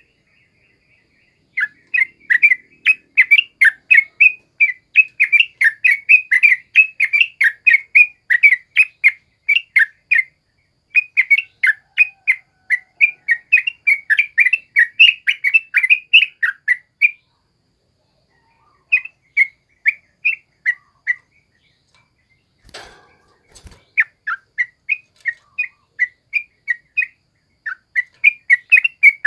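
Yellow-vented bulbul (trucukan) singing in wild-style runs of rapid chattering notes, about four a second, broken by short pauses. A brief rustling noise comes about three-quarters of the way through.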